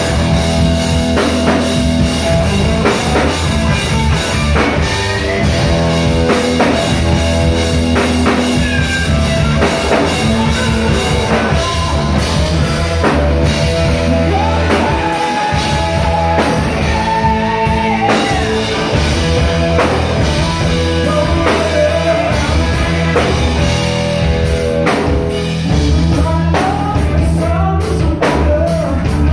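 Live rock band playing: a man singing over electric guitar, electric bass and a drum kit.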